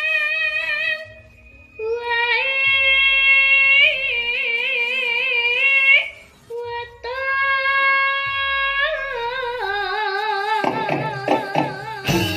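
A young girl sinden singing long, held notes with wide vibrato in a Javanese sindhenan melody, amplified through a microphone, in three phrases with short breaks between them. Several sharp knocks come in near the end.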